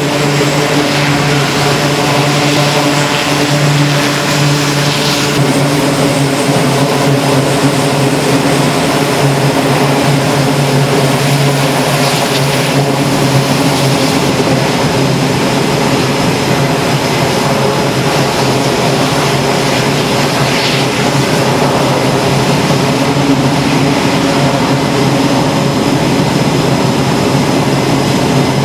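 Twin Allison T56 turboprop engines of a Northrop Grumman E-2C Hawkeye running steadily, with a strong, even propeller hum and a rushing turbine noise.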